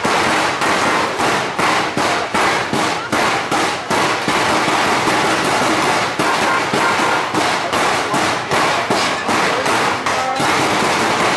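Perchten running through the crowd with their large bells: a loud, unbroken din of rapid, irregular clanks and bangs, several a second.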